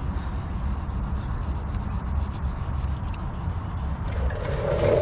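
Hand wet-sanding a plastic side marker lens with fine 3000-grit sandpaper on a small foam pad: a steady back-and-forth scratchy rubbing that grows louder near the end.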